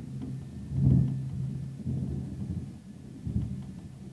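Thunder rumbling in rolling swells, loudest about a second in, with another swell past the three-second mark.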